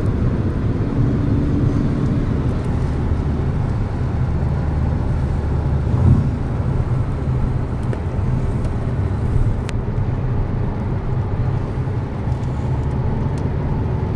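Steady low rumble of a car driving, heard from inside the cabin, with a single sharp click about ten seconds in.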